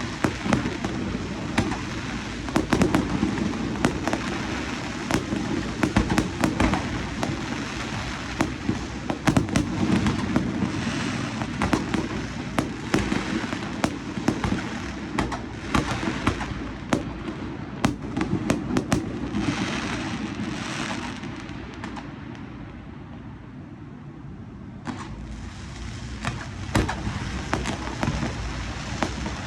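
Fireworks display: a dense run of sharp bangs and crackles over a steady low rumble. It thins out and quietens about three-quarters of the way through, then picks up again.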